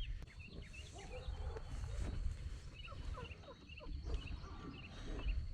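Pullets (young hens) peeping and cheeping softly, many short calls overlapping at random.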